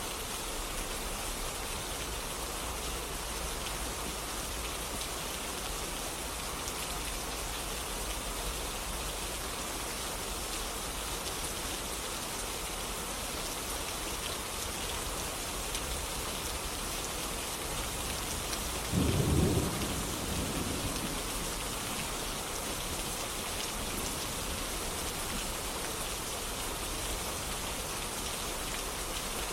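Steady rain falling, with one short, low rumble of thunder about two-thirds of the way through that dies away over a second or two.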